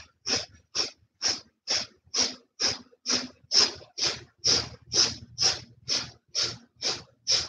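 Kundalini yoga breath of fire: quick, forceful exhalations through the nose in a steady rhythm of about two a second. Each is a short puff driven by pulling the belly in.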